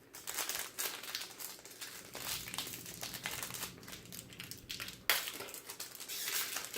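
Plastic wrapper of a trading card pack crinkling and tearing as it is opened by hand, in a run of irregular crackles with a sharper, louder rip about five seconds in.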